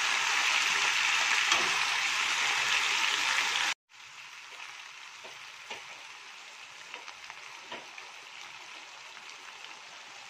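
Chicken pieces frying in a little oil in a nonstick pan: a steady sizzle, with metal tongs clicking as they turn the pieces. About four seconds in the sound cuts out for a moment and comes back much quieter, a softer sizzle with occasional clicks.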